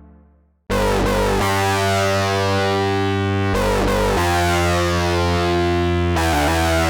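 Arturia SYNTHI V software synthesizer (EMS Synthi AKS emulation): a preceding sound dies away, then under a second in a loud, buzzy, distorted sustained tone starts abruptly and holds, its pitch and tone stepping to new settings several times.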